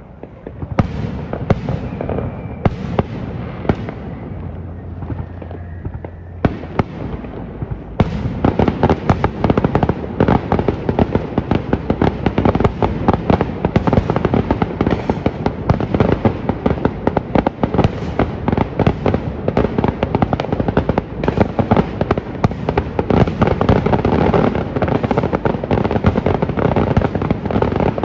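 Fireworks going off: a few separate sharp bangs at first, then from about eight seconds in a dense, continuous crackle of many rapid pops.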